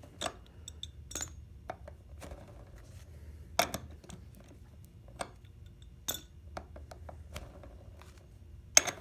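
Skate tool clinking against a skateboard wheel's axle nut and truck as the nut is tightened: irregular sharp metal clicks, the loudest near the end.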